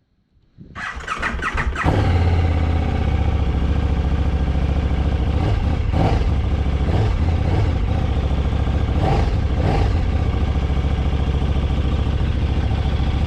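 KTM 1290 Super Duke GT's 1301 cc V-twin being started: the starter cranks briefly, the engine catches and settles into a steady idle, with a few brief swells of the throttle near the middle.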